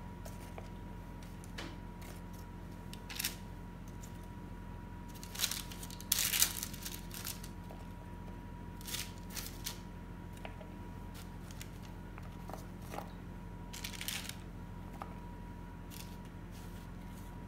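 Sliced apples being set by hand onto a baking tray of vegetables: scattered soft rustles and taps, the loudest about six seconds in, over a steady low hum.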